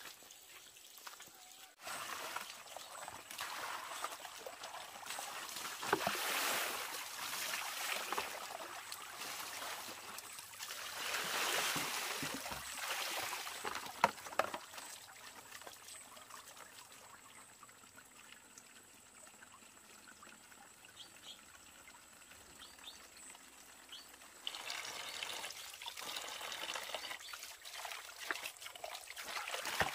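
Water trickling and pouring, swelling louder now and then, with one sharp knock about midway.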